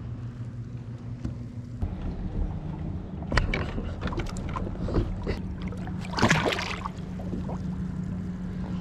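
A steady motor hum that shifts to a different pitch about two seconds in, with scattered knocks and a brief splash of water a little past the middle.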